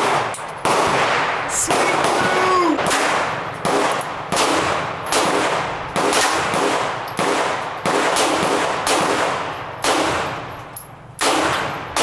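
Handgun shots fired one after another, roughly one to two a second, each a sharp crack with a short fading echo.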